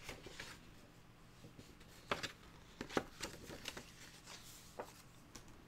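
Faint rustling and a few light clicks of cardboard game cards and paper being handled and slid on a tabletop.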